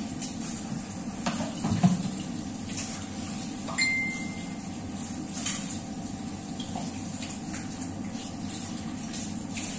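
Kitchen clatter of pots, dishes and utensils: a few knocks and clinks, the loudest about two seconds in, and a short ringing metal-or-glass clink about four seconds in, over a steady low hum.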